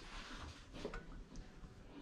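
Faint handling noise from a small stainless saucepan of butter sauce being swirled by hand: a soft swish near the start and a few light ticks about a second in.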